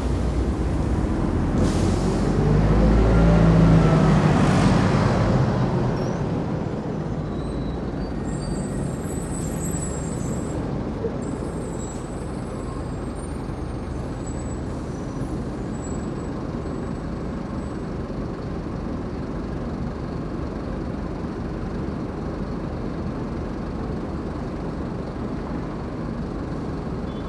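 Old bus engines and heavy traffic: a loud low rumble swells over the first few seconds with a whine rising and then falling. About six seconds in it settles into a steady low traffic rumble.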